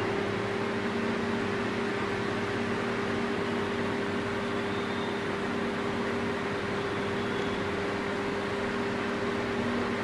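Anchor Grestar 225 mm table fan running: a steady rush of air with a steady low tone beneath it. The motor itself is quiet; the sound is the airflow striking the fan's plastic grille.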